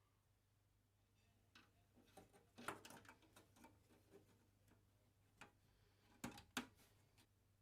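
Scattered light clicks and knocks of hands handling computer parts and screws while a motherboard is being swapped, with a few sharper clicks about a third of the way in and twice near the end, over a faint steady hum.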